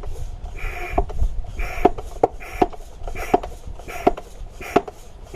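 A hand pump working steadily, drawing surplus oil out of an overfilled lawnmower engine: about seven strokes, each a short hiss of suction ending in a sharp click.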